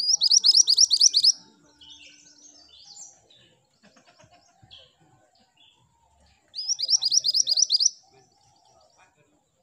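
Minivet (mantenan gunung) singing: two fast bursts of about ten high, sharp repeated notes, one at the start and one about two-thirds through, with softer scattered chirps between.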